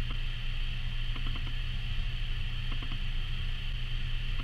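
Steady low electrical hum with a constant high-pitched whine and hiss, the camera's own recording noise, which the owner likens to the camera having a heart attack.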